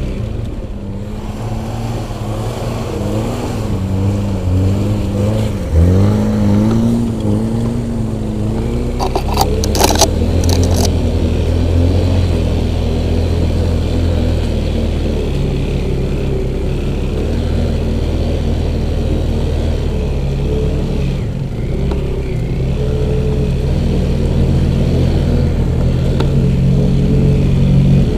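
Off-road vehicle engine running under changing throttle: its pitch rises and falls over the first ten seconds, then holds steadier. A few short knocks come near the middle.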